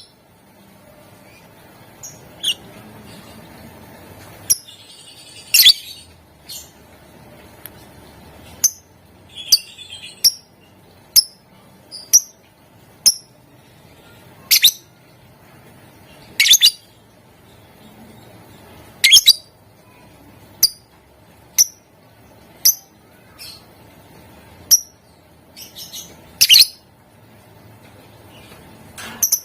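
Lovebird giving short, sharp, high-pitched chirps at irregular intervals, roughly one a second, some coming in quick pairs.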